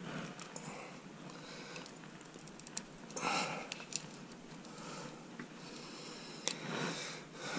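Faint clicks and rustling of hands working a band-type piston ring compressor around a piston, with a couple of short breaths or sniffs between the clicks.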